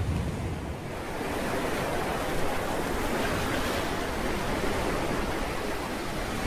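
Steady rush of sea waves and surf, with a heavier low rumble easing off about a second in.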